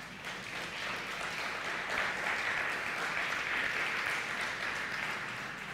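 Congregation applauding: many hands clapping steadily, a little louder about two seconds in and dying down near the end.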